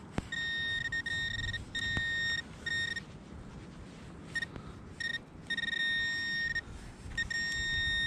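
Metal detector giving a steady, high target tone in repeated beeps of varying length as the coil sweeps over a buried target reading 65, which the detectorist expects to be another coin.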